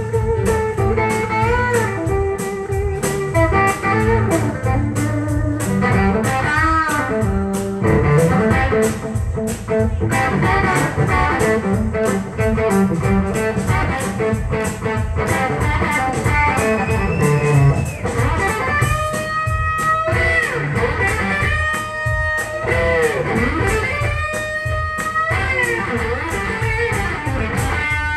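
Live blues band: an electric guitar plays a lead with string bends over drums and bass. In the second half the guitar plays held notes broken into short, regularly repeated phrases.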